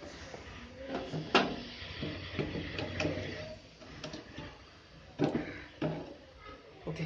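Knocks and clunks of a metal Usha sewing machine head being set down and settled into its wooden table, several sharp knocks a second or so apart, the loudest about a second and a half in.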